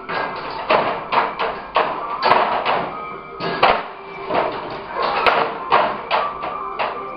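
Metal dog bowl knocked and shoved about the floor of a wire dog crate by a collie puppy, clattering irregularly several times a second with a brief metallic ring, mixed with the thump and scrabble of his paws on the crate tray.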